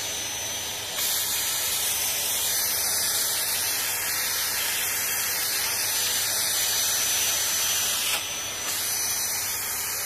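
Corded 2 kW vacuum cleaner running at its lowest power setting, a steady rushing hiss with a thin high whine, as its nozzle sucks up scattered starch. The rush dips for a moment at the start and again about eight seconds in.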